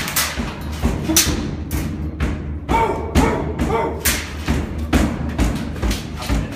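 A rapid, irregular series of sharp knocks and thumps, several a second, with a brief voice in the background.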